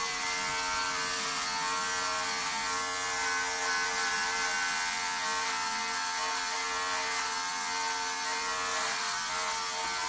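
Handheld electric shaver running with a steady, even buzz as it is passed over a shaved scalp.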